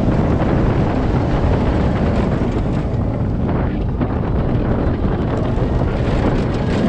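Roller coaster ride heard from the front car: wind rushing over the microphone over the train's steady rumble along the steel track, a loud unbroken noise.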